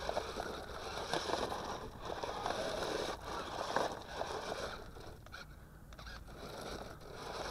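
UD2168A transforming RC rock crawler clambering over loose gravel and rocks: its tyres crunch and scrape on the stones, with a few sharp clicks.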